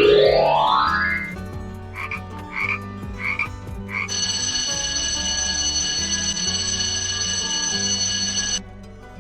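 Frog calling: about four short croaks a couple of seconds in, then a long steady trill lasting about four and a half seconds, over quiet background music. A rising whoosh opens it.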